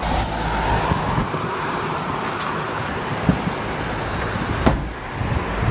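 A car running close by with outdoor street noise, a steady low rumble, broken by a few short sharp clicks, the strongest near the end.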